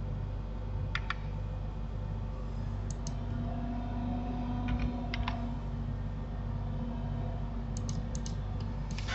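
Computer keyboard keys and mouse buttons clicking in short pairs and small clusters a second or two apart, over a steady low hum.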